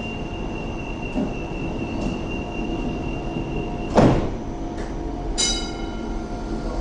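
Hong Kong Light Rail Phase 5 light rail vehicle at a platform: a steady high tone sounds until about four seconds in, when the doors shut with a loud thud. A short electronic tone follows about a second and a half later, over the steady hum of the standing tram.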